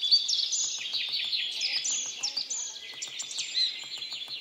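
Many small birds chirping and twittering together, a dense run of short, high, sweeping notes.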